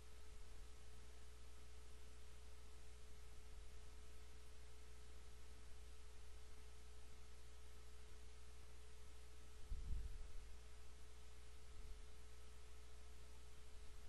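Steady low electrical hum and hiss of the recording, with a faint constant tone held over it. A single soft low thump about ten seconds in.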